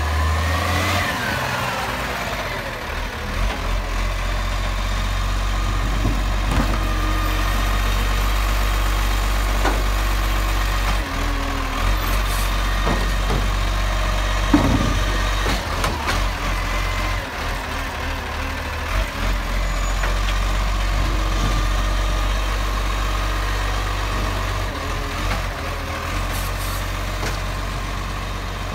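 Bucher side-loader garbage truck's engine running steadily while its hydraulic arm lifts and empties wheelie bins, with a steady whine and a falling tone in the first couple of seconds. Scattered knocks and clanks of bins against the arm and hopper, the loudest about halfway through.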